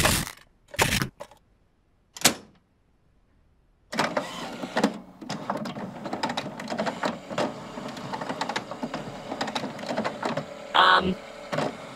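Cartoon sound effects: a few short scraping hits as a Pop-Tart is shoved into an inkjet printer's cartridge slot, then after a pause of about a second and a half, a long run of mechanical whirring and clattering from the printer as it starts working, with a short pitched sound near the end.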